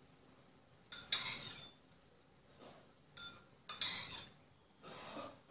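Spoon clinking against a bowl while eating soup: sharp ringing clinks about a second in, then another cluster around three to four seconds in.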